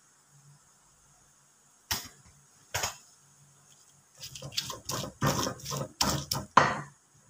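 Stone pestle crushing and grinding fried chilies and shallots in a stone mortar (cobek and ulekan) for sambal. There are two single knocks, then about four seconds in a quick run of about ten grinding and pounding strokes.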